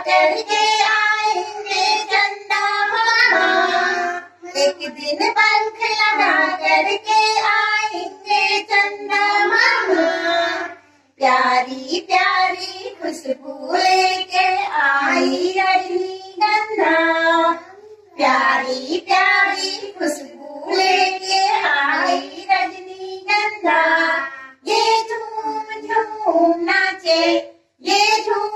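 A group of small children singing a song together, in short phrases with brief pauses between them.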